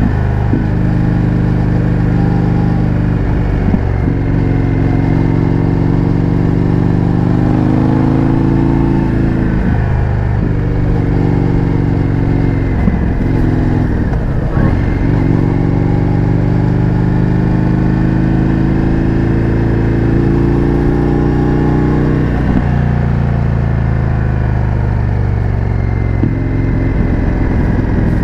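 Indian FTR 1200's V-twin running through an Akrapovič exhaust, heard from the bike while riding: the engine note climbs slowly in each gear and dips briefly at several gear changes.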